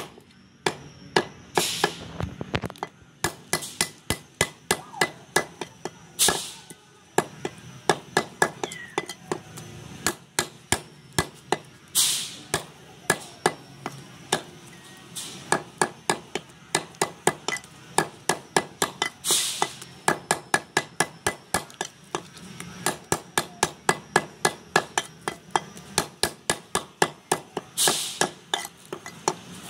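Meat cleaver chopping goat meat into small pieces on a wooden log block: runs of sharp chops, about three a second, broken by short pauses and a few brief scraping sounds.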